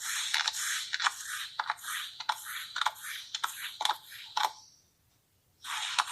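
Kinetic sand being cut, crunching and scraping in a run of short crackling strokes. It stops for about a second near the end, then starts again.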